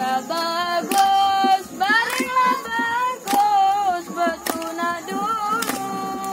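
A boy singing a folk song unaccompanied, holding long notes, while a group claps hands along roughly once a second.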